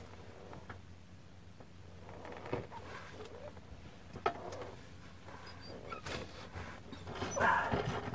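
Hand tools working on a bus seat's 5/8-inch floor bolts: a few separate metal clicks and knocks, with a louder, rougher stretch near the end.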